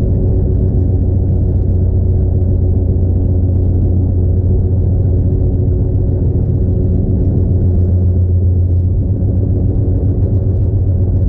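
Steady low rumble of a car driving, heard from inside the car: engine and road noise running evenly, with no change in pace.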